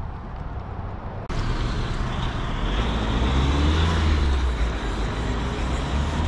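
Road traffic noise that starts abruptly just over a second in, with a motor vehicle passing close by, its low rumble loudest in the middle.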